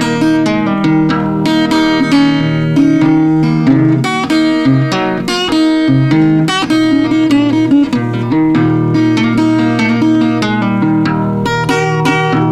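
Acoustic guitar playing an instrumental blues break: a steady run of plucked notes over changing low bass notes.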